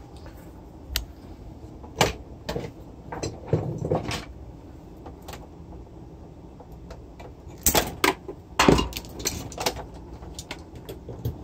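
Scattered clicks, knocks and rattles of a turntable's power cord and cables being handled and plugged in. The loudest knocks come around eight and nine seconds in.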